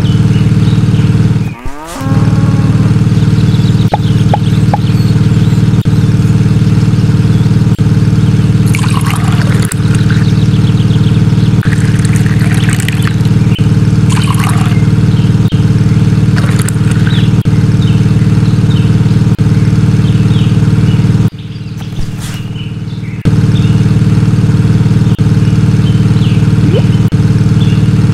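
Small electric hobby motor running steadily with a loud buzzing drone, driving a miniature toy juice crusher through a rubber-band belt. The drone drops out briefly twice, about two seconds in and again around twenty-one seconds in.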